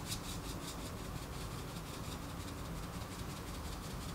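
Steady background hum and hiss, room tone with no distinct event.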